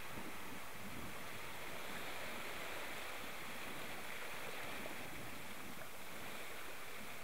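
Steady rush of water churned up in a boat's wake.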